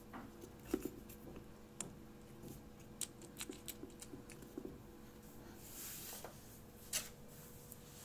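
Faint handling noise: scattered light clicks and taps as a short rubber hose piece is turned in the hand, with a brief rubbing sound about six seconds in and a sharper click about a second later. A faint steady hum runs underneath.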